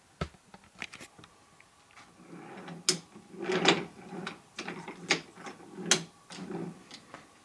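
Wooden toy trains pushed by hand along wooden track. A few light clicks come first, then from about two seconds in the wooden wheels roll in several short pushes, with sharp clacks as the cars knock together.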